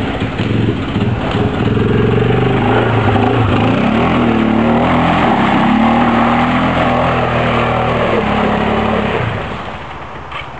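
Quad bike (ATV) engine revving hard through deep mud, its pitch rising and falling with the throttle. About nine seconds in it drops away and becomes quieter.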